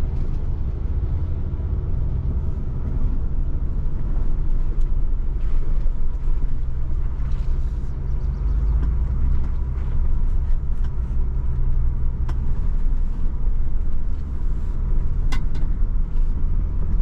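4x4 vehicle's engine running steadily at low speed on a rough dirt trail, a continuous low rumble with scattered faint knocks and rattles and one sharper knock near the end.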